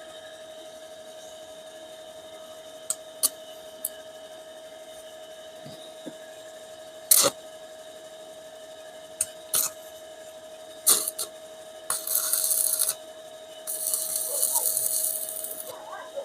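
Hand tools knocking and clinking on metal in a series of short sharp hits, then two bursts of high rasping noise near the end, over a steady hum.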